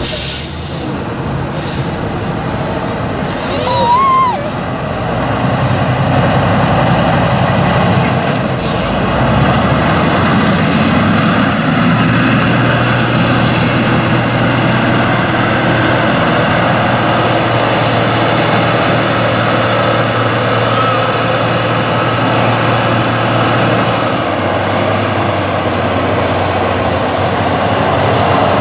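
Tatra 815 trial truck's diesel engine running under load as the truck crawls slowly through deep mud, a steady drone. About four seconds in it swells briefly, with a short squeal.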